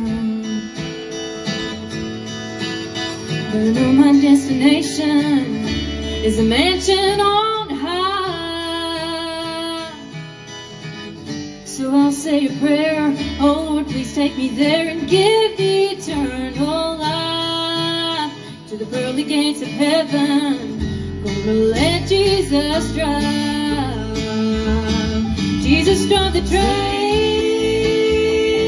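Live bluegrass band playing an instrumental break: a fiddle carries the melody with sliding notes over banjo, acoustic guitar, mandolin and bass.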